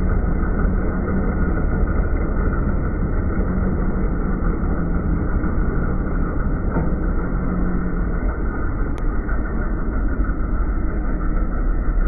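Grimme potato harvester running while lifting potatoes, with its sieving web shaking soil through its bars. It makes a loud, steady mechanical din.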